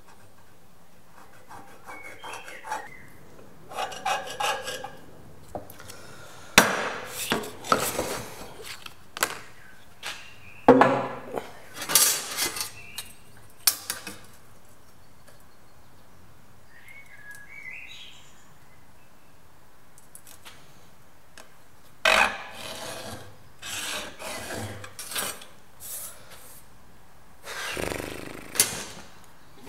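Steel scriber scratching lines into a marking-fluid-coated metal plate along a steel rule, in two runs of short scraping strokes with quiet pauses between.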